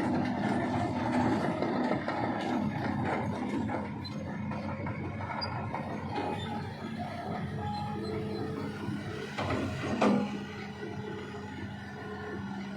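Motor vehicle engines running, a steady low hum over rumbling road noise. About ten seconds in, a louder sound falls quickly in pitch, like a vehicle passing close.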